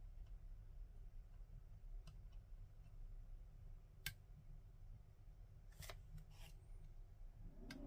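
A few sparse, faint clicks of lock picks working inside an ASSA Desmo high-security cylinder, the sharpest about four seconds in, over a low steady hum.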